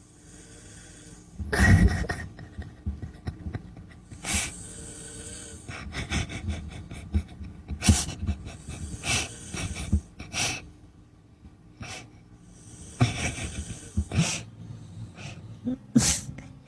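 Heavy snoring during sleep: a run of loud, rasping snorts and gasping breaths, one every one to three seconds and irregular in strength.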